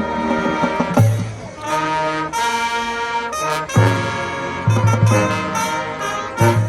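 High school marching band playing, brass sections holding sustained chords over low brass and drum hits.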